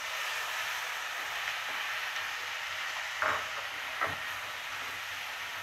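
Vegetables sizzling in hot ghee in a pressure cooker as cauliflower is added and stirred with a wooden spatula. Two short knocks of the spatula against the pot come about three and four seconds in.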